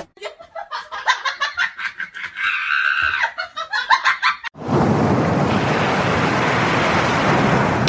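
Rapid, choppy laughter-like vocal sounds, then about halfway through a loud, steady rushing noise starts abruptly and holds.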